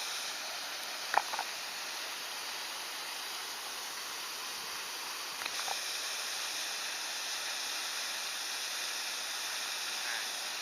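Steady rushing hiss of flowing stream water, with one short click about a second in.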